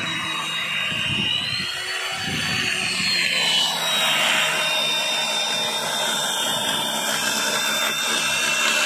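Electric chainsaw running, with a steady high whine that wavers slowly in pitch as the chain works through a log.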